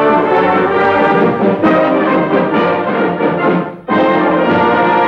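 Orchestral end-title music, brass to the fore, playing loudly; it breaks off briefly about four seconds in, then comes back on a held chord.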